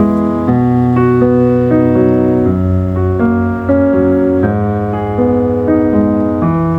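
Background music: piano or keyboard playing a slow run of sustained chords, a new note every half second or so.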